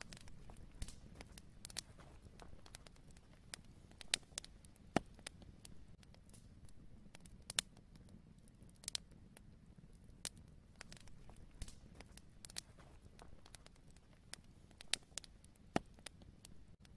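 Faint, irregular crackling: sharp little clicks a few times a second, a few louder than the rest, over a low steady hum.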